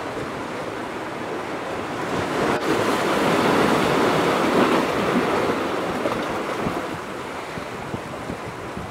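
Ocean surf with wind on the microphone; a wave swells up a couple of seconds in, peaks around the middle and dies away.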